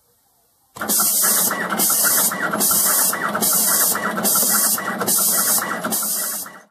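An IGUS drylin delta robot, driven by an ST Robotics R18 controller, runs a fast pick-and-place cycle: its drive motors whir steadily while the vacuum gripper's air hiss switches on and off in time with each pick, about once every 0.85 s. The sound starts abruptly about a second in, runs through seven cycles and stops just before the end.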